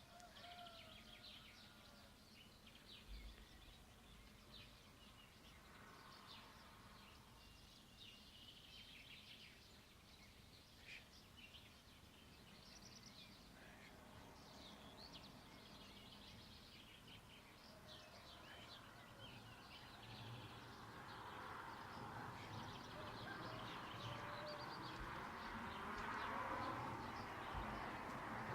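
Faint songbirds chirping and calling at dawn, with many short, high chirps. A steady background hiss of ambient noise grows louder over the last third.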